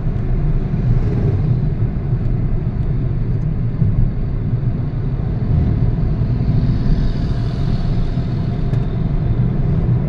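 Road and engine noise inside a moving car: a steady low rumble, with a hiss that swells and fades about seven seconds in.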